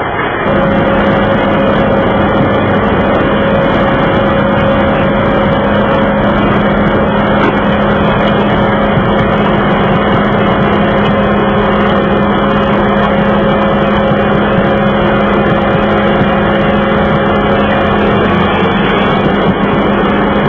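Broce Broom RJ350 sweeper running at a steady working speed: a loud, even machine drone with a constant low hum, which steps up in loudness about half a second in.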